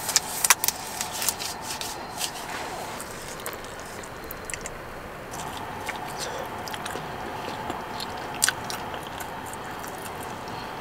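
Thin disposable gloves crinkling and snapping as they are pulled on. Then biting and chewing on pieces of barbecue chicken, with scattered small clicks and crunches over a steady background hum.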